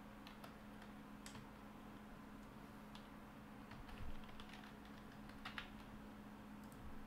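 Faint typing on a computer keyboard: scattered keystrokes and clicks, a few louder ones about four and five and a half seconds in, over a low steady hum.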